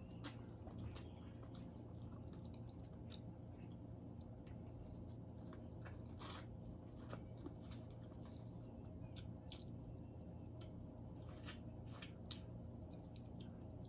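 Faint close-up eating sounds of king crab being eaten: wet chewing and squishing, with scattered sharp clicks and cracks of shell being handled. A steady low hum lies under it.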